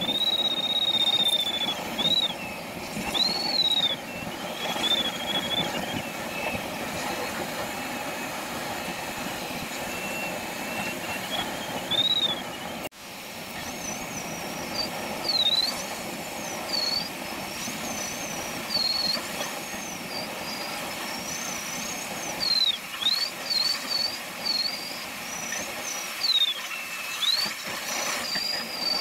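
A glider's audio variometer sounds a thin electronic tone that slides up and down in pitch, over a steady hiss of airflow around the canopy. Past the midpoint, after a brief dip, the tone sits higher and keeps swooping down and back up. A variometer's pitch follows the climb rate, so the higher tone signals the glider climbing in lift.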